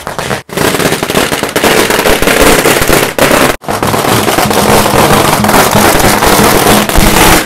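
A long string of firecrackers going off in a loud, rapid, continuous crackle of bangs, broken by two short gaps.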